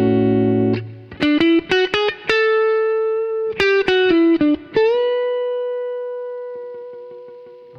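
Electric guitar played through a DemonFx CK Compressor pedal: a held chord, quick picked single-note licks and a held note, then a last note about five seconds in that rings on and fades slowly with long sustain.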